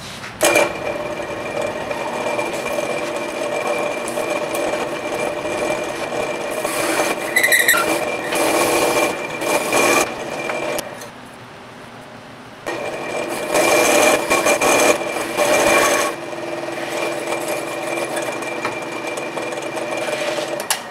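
Drill press driving a 2-inch hole saw through thick extruded aluminum flat bar: a steady rough cutting noise with a high ringing tone, with louder stretches. It eases off briefly a little past halfway, then cuts on until near the end.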